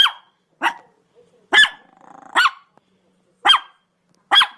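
A dog barking six times in quick, uneven succession, each bark short and sharp and dropping in pitch.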